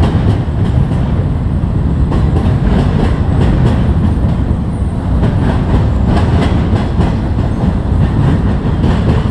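CSX double-stack intermodal freight train rolling past: a steady rumble of container cars with the wheels clicking over the rail joints.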